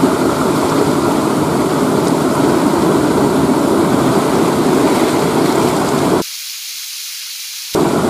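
River water rushing steadily around rocks. The rush cuts out abruptly for about a second and a half near the end, leaving only a faint hiss, then comes back.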